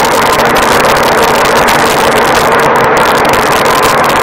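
New Holland 3630 tractor's diesel engine running under heavy load as it pulls a loaded trailer with its front wheels lifted: a loud, steady noise.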